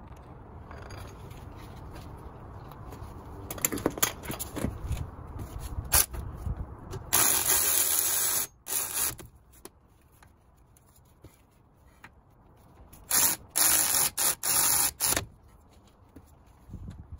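Aerosol spray can hissing in bursts: one spray of about a second and a half, then a run of short sprays about five seconds later. Light metallic clinks of tools being handled come before it.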